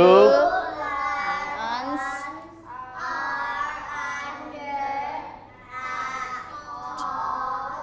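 Young children reading a sentence aloud together, slowly drawing out the words in a chant: "two lions are under a tall lamp."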